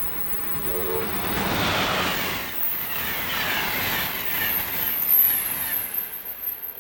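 Passenger train of stainless-steel coaches passing at speed on the Northeast Corridor: a swelling rush of wheels on rail with falling whines, loudest through the middle and fading near the end. A thin high whistle slides down about five seconds in.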